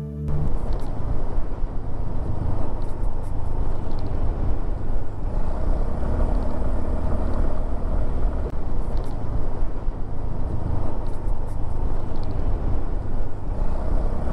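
A vehicle travelling along a road: a steady, loud, low rumbling noise with no clear engine pitch.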